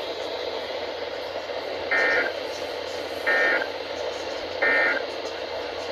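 Three short bursts of warbling EAS/SAME digital data tones, about a second and a quarter apart and starting about two seconds in: the end-of-message signal that closes an Emergency Alert System broadcast on NOAA Weather Radio. They play over a steady radio hiss.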